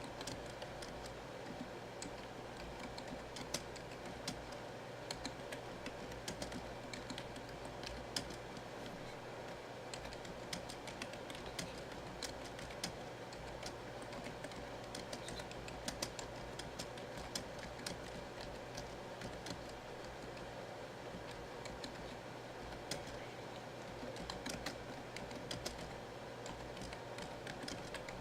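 Typing on a computer keyboard: irregular runs of key clicks over a steady background hum.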